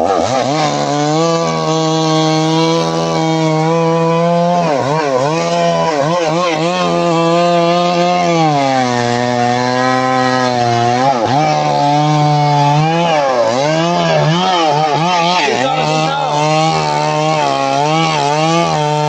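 Two-stroke chainsaw cutting along the length of a large felled log under load. The engine pitch sags repeatedly as the chain bites into the wood and climbs back as the load eases, longer dips about a third and half of the way through.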